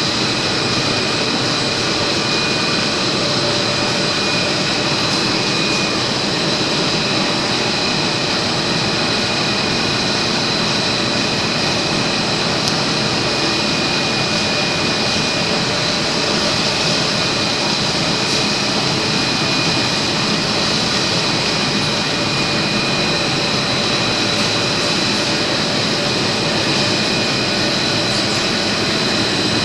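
Polyethylene cling film production machine running steadily: a constant mechanical noise with steady high-pitched whines layered over it.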